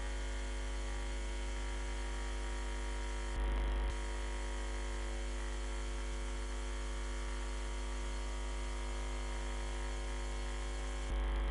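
Steady electrical mains hum with its overtones and no other sound, briefly louder about three seconds in and again near the end.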